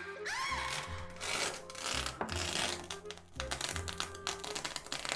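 Background music with a repeating bass pattern and held notes, with a short rising glide near the start.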